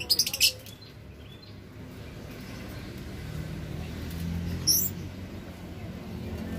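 Caged lovebirds giving a quick run of sharp, high chirps at the start and a single chirp near the end, over a low hum that slowly grows louder.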